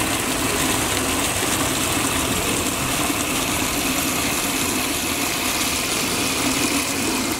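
Mirano PS-150BIT 400-watt automatic water pump running steadily under load, a steady hum beneath the rush of water gushing from two fully opened taps onto a concrete floor.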